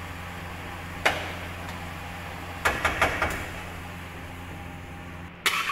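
Metal spatula striking and scraping a steel wok while meat is stir-fried: one knock about a second in, a quick cluster of clanks around three seconds, and another clank near the end. A steady low hum underneath stops about five seconds in.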